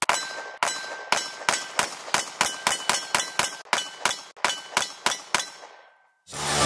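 Semi-automatic pistol fired in a rapid string of about twenty shots, roughly three to four a second, stopping about a second before the end; music comes in just after.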